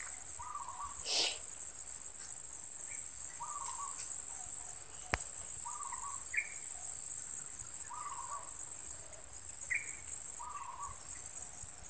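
Steady high-pitched insect drone, with a short animal call repeating about every two to three seconds beneath it. A brief rustle about a second in.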